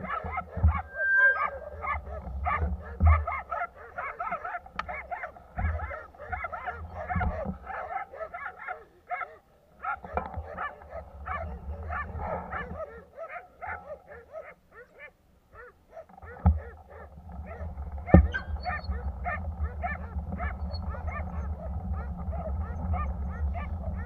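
A dog barking over and over in quick short calls, with a break near the middle. Low wind rumble on the microphone of the moving bicycle runs underneath, with a few thumps.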